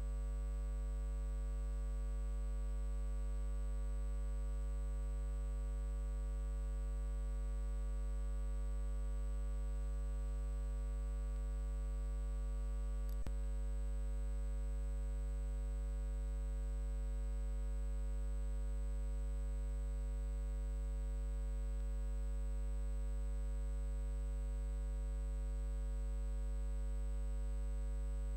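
A steady, unchanging electronic drone of many held tones, deepest at the bottom, that does not vary at all. A single sharp click comes about thirteen seconds in.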